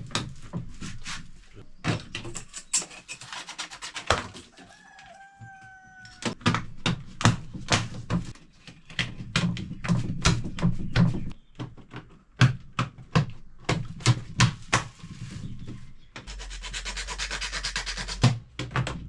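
PVC wiring casing covers being pressed and snapped onto their channels: a run of sharp plastic clicks and knocks, with two stretches of plastic rubbing and sliding, about two seconds in and again near the end.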